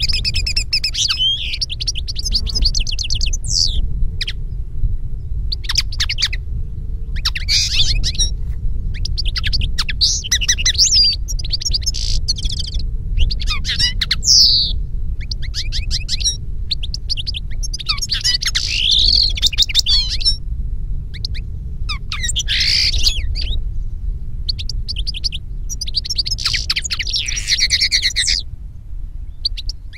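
European goldfinch and common linnet songs set against each other: bursts of rapid twittering and trilling, each a second or two long, with short pauses between, over a steady low rumble.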